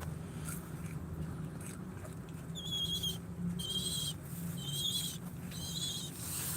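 A bird calling four times, about once a second, each call a short high wavering note, over a steady low hum.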